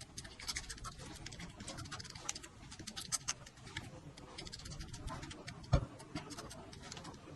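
Close-miked eating sounds: irregular wet chewing and mouth clicks, with one sharp low thump a little before the end.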